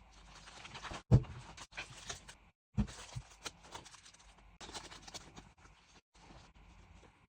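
Rustling of packaging being handled and opened, with many small clicks and two sharp knocks, about a second in and just under three seconds in. The sound drops out briefly several times.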